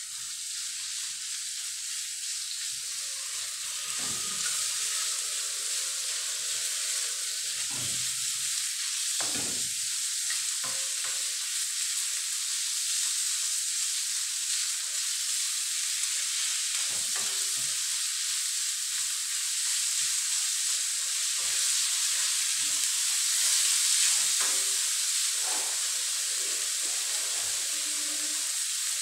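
Ground meat frying in a metal wok over a gas flame, with a steady sizzle. Now and then a ladle scrapes and knocks against the pan as it turns the meat.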